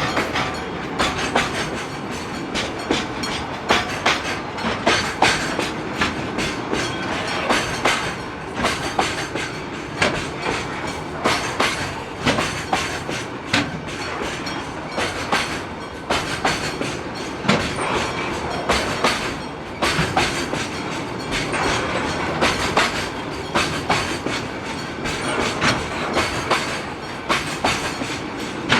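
Freight train rolling through a level crossing, its wheels clacking irregularly over the rail joints.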